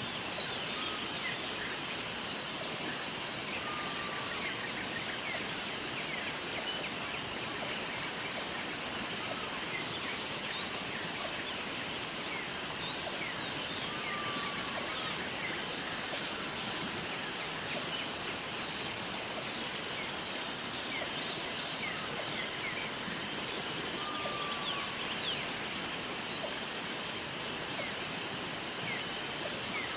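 Steady rush of a waterfall, with a high, even buzz that comes in about every five seconds and lasts about two and a half seconds each time, and a few faint short chirps.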